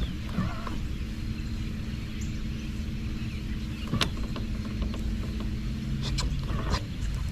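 Low, steady hum of the fishing boat's motor, with a sharp click about four seconds in and a few more clicks near the end.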